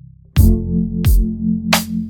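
Lo-fi hip-hop beat: after a soft held bass note, the full beat drops in about a third of a second in, with a deep kick drum falling in pitch under sustained bass and chord tones, and a crisp snare hit a little over a second later.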